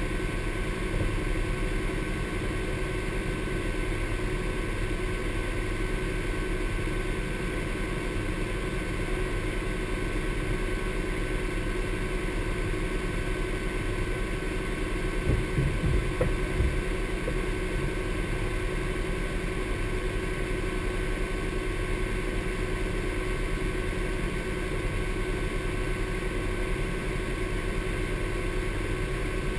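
Honda Pioneer 1000 side-by-side's parallel-twin engine idling steadily while the machine stands still, with a short patch of louder low thumps about halfway through.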